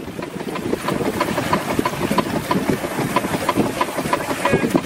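Small steam launch's steam engine running under way, a steady even beat of about four strokes a second.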